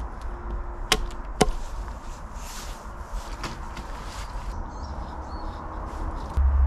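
Two sharp knocks of a small hatchet striking a thin wooden pole, about half a second apart, followed by faint scuffs and rustles. A steady low rumble comes in near the end.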